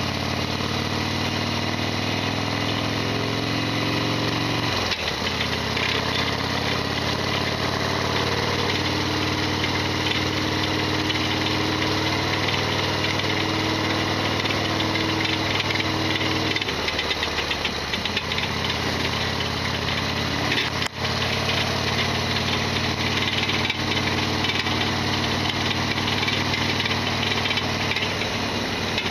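Modified Harley-Davidson Sportster XL1200R's air-cooled 1200 cc V-twin engine running under way, with a loud mechanical rattling that the owner calls a great abnormal noise. The engine note drops sharply about five seconds in and shifts again around seventeen seconds in.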